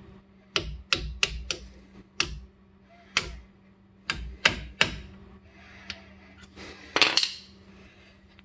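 Mallet striking a drill bit used as a punch, driving a pad-retaining pin out of a six-piston Brembo brake caliper: about a dozen sharp metallic taps at uneven spacing, with a louder, longer clatter about seven seconds in.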